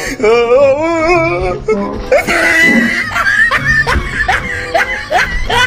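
Comedy soundtrack music with a dubbed laughing sound effect. In the second half, short rising notes repeat about twice a second over a steady high tone.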